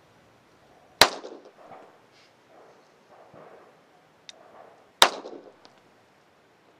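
Two pistol shots about four seconds apart, each with a short ringing tail: slow, deliberate single shots fired one at a time for accuracy.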